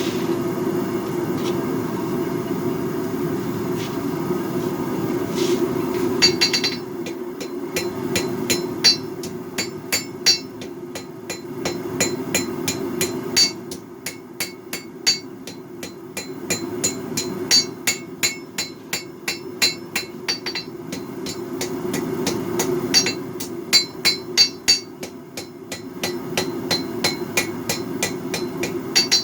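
Hammer blows on a hot Damascus steel blade on the anvil: sharp, ringing metallic strikes that come in runs of a few a second, starting about six seconds in, over a steady low rumble.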